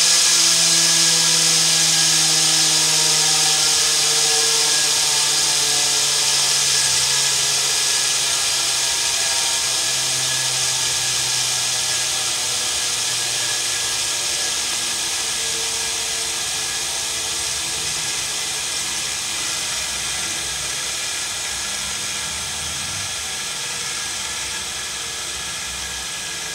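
3D-printed Tesla turbine with aluminium disks coasting down: a steady high-pitched whine and hiss that slowly fades and sinks in pitch as the rotor slows.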